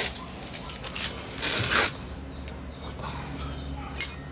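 Metal hand tools being handled while working on the front steering: a brief scraping rush about a second and a half in, and one sharp metallic clink with a short ring near the end.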